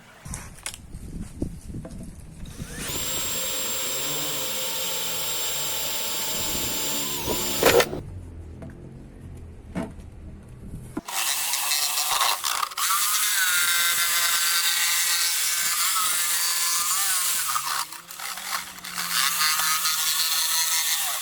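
Electric power tool working wood in two long runs, its pitch dipping and rising under load, after a few knocks at the start.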